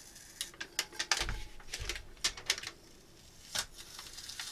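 Transfer tape being peeled off a vinyl decal on a tumbler: a run of irregular crackling clicks and ticks, with a couple of dull handling bumps about a second in.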